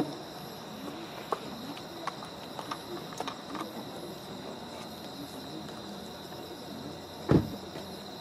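Insects chirping steadily in a high, even drone, with faint voices murmuring in the background. A single dull thump about seven seconds in is the loudest sound.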